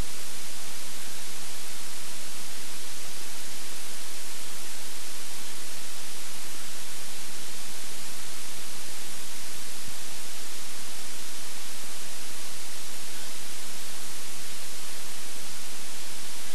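Steady, loud hiss of static with a faint electrical hum underneath, unchanging throughout; no crackling or other distinct sound of the burning engine comes through it.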